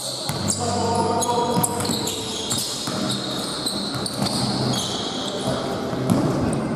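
Indoor ball game on a hard court: a ball bouncing repeatedly and shoes squeaking in short high bursts, with players' voices calling out.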